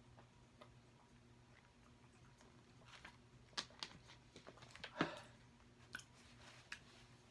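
A plastic water bottle being capped and put down: a few light clicks and crinkles of the plastic bottle and its screw cap, the loudest about five seconds in, over an otherwise near-silent room.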